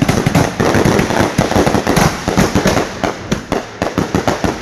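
Fireworks finale of aerial display shells firing from a mortar rack and bursting overhead: a dense, rapid barrage of loud overlapping bangs, many a second, easing slightly near the end.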